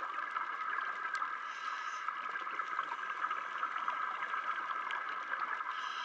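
Underwater ambience picked up by a diving camera in its waterproof housing: a steady crackling hiss with a few scattered clicks.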